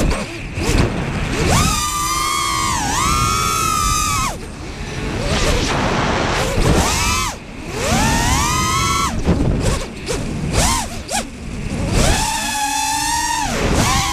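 Dquad LRX 5-inch FPV quadcopter's four T-Motor F40 2500kv motors spinning three-blade 5-inch props, a high whine that climbs and drops sharply again and again as the throttle is punched and chopped through flips and rolls, recorded on the onboard GoPro. Rushing wind fills the gaps when the throttle is cut.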